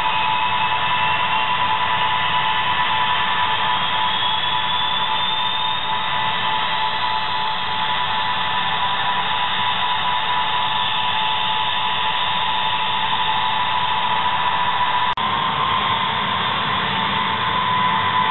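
Ilyushin IL-76's four Soloviev D-30KP turbofan engines running on the ground with a loud, steady whine. A thinner whine rises slowly in pitch over the first seven seconds or so as an engine spools up. There is a brief break about 15 seconds in.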